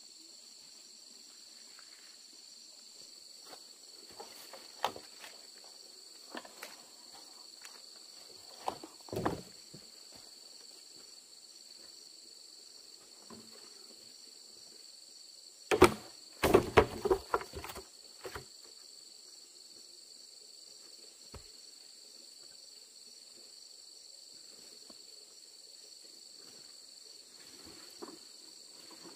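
Steady high-pitched chorus of insects such as crickets. A few scattered knocks stand over it, and a quick run of several loud knocks comes about halfway through.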